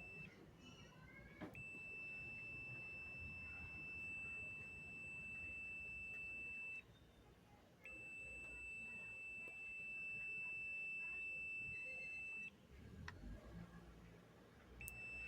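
Multimeter continuity beeper giving a steady, high electronic beep while its probes touch the pump motor's winding leads. The beep holds for several seconds at a time and breaks off in short gaps: near the start, about halfway through and near the end. A continuous tone like this shows that the winding being tested has low resistance and is not open.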